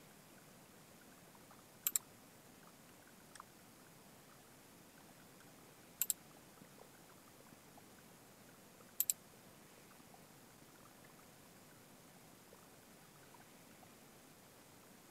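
Three sharp double clicks, each a quick pair, about four and then three seconds apart, over faint room hiss, with one fainter tick between the first two.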